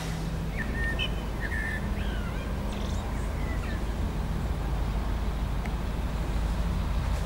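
A few short bird chirps in the first three seconds over a low steady rumble.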